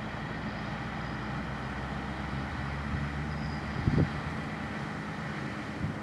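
Fendt Vario 820 tractor's diesel engine running steadily as it drives past pulling a Beco Super 1600 tipper trailer, with a short low thump about four seconds in.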